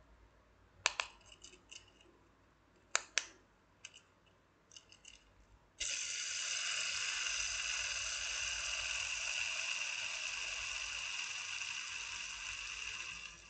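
A few sharp clicks as the Simple Dimple pop hex fidget spinner is handled. About six seconds in it is flicked into a spin, and its bearing whirs steadily for about seven seconds, easing slightly before dropping off sharply near the end.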